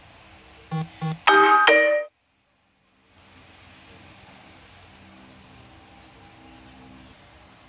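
A short electronic chime jingle: two quick notes, then a brighter, louder run of ringing notes lasting under a second, cut off suddenly into dead silence.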